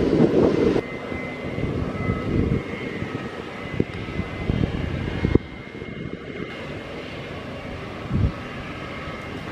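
Gulfstream business jet's turbofan engines idling as it taxis: a steady high whine over a low rumble. Wind buffets the microphone for the first second.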